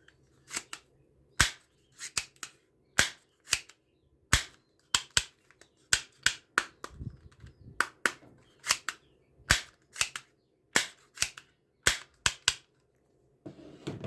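Airsoft toy pistol firing single shots over and over: sharp pops at uneven spacing, roughly two a second.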